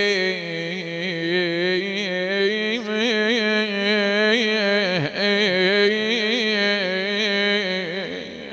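A man's voice chanting an Arabic elegy in long, ornamented melismatic phrases on held vowels, the pitch wavering around a steady note. The first phrase breaks off briefly about five seconds in, and a second phrase follows and fades near the end.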